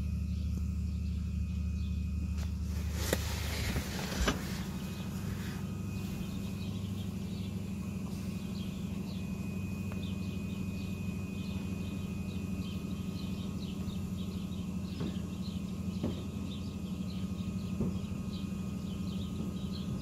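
Diesel engine of a Weidemann loader running steadily close by. About three to four seconds in there is a short loud rush of noise ending in a clunk, and after it the deepest part of the engine hum drops away.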